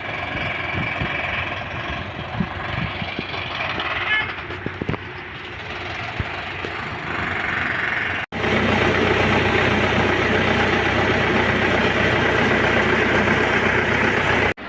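Dump truck running with a steady, noisy mechanical rush. The sound cuts off abruptly about eight seconds in and jumps to a louder, even rush.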